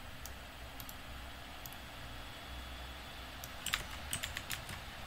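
Typing on a computer keyboard: a few scattered key presses, then a quick run of keystrokes in the last second and a half, over a faint steady background hum.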